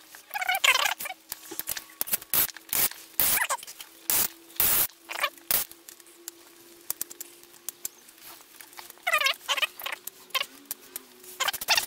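Hand ratchet clicking in short strokes and metal tools knocking as the screws holding a Derbi Euro 3 engine's crankcase halves together are tightened one by one. Sharp clicks come thick through the first half, with runs of high, squeaky chirps now and then, over a faint steady hum.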